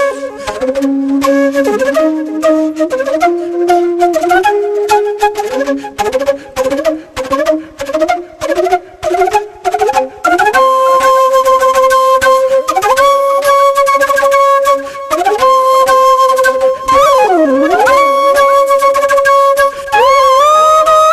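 Instrumental background music carried by one melody line: short notes climbing step by step for the first half, then long held notes with slides and bends in pitch.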